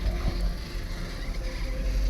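Ride noise on an open chairlift going uphill: a steady low rumble, with faint steady tones above it.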